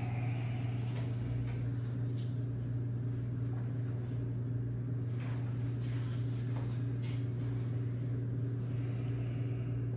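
Steady low hum throughout, with a few faint soft clicks and rustles.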